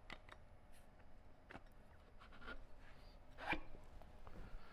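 Faint clicks and light scraping as an axle stub shaft is slid by hand into the transaxle's differential. The loudest click comes about three and a half seconds in. The shaft slips in without hammering, as a correct fit should.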